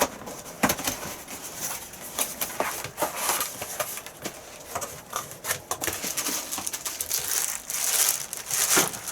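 Steamer packaging being opened and handled: irregular crinkling and rustling with scattered knocks, heaviest about three seconds and eight seconds in.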